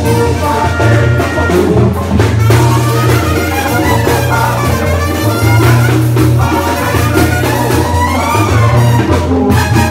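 Live Mexican banda music played loud: a brass section of trumpets with a tuba bass line over drums.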